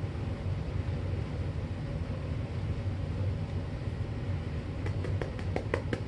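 Steady low rumble of room background noise, with a quick run of about seven scratchy ticks near the end as sand is worked into the carpet pile by hand.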